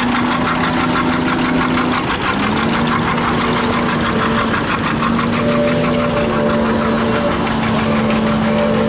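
Old tractor engine idling with an even beat and a steady hum; the hum's pitch shifts slightly about two seconds in.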